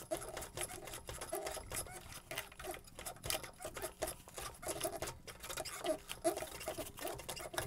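Juki 1541 industrial walking-foot sewing machine stitching slowly in short stop-start bursts through a thick leather and fabric seam, with irregular clicks and knocks from the needle and feed.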